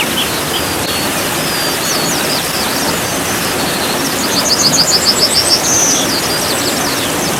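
Steady rain, with small birds chirping and whistling over it; a fast trill of short repeated notes comes about four seconds in.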